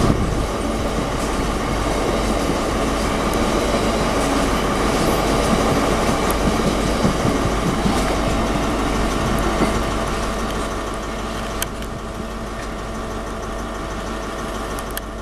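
Freight train hopper wagons rolling past at close range: a steady rumble and rattle of wheels on rail. About eleven or twelve seconds in, the sound drops to a quieter, steadier rumble.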